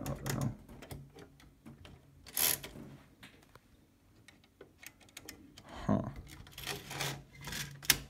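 Light clicks, taps and rubbing of metal parts as a 1952 Rooy portable typewriter is handled, with one louder scrape or rattle about two and a half seconds in and another cluster of handling noises near the end.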